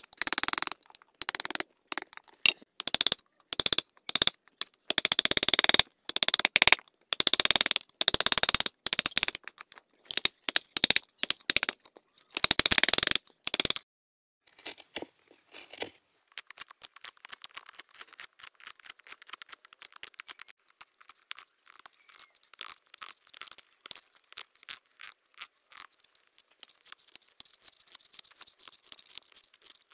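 A hand gouge paring curled shavings from the inside of a wooden bowl: a run of rough scraping, tearing strokes, about one to two a second. About halfway through they stop and only faint, fast light scratching remains.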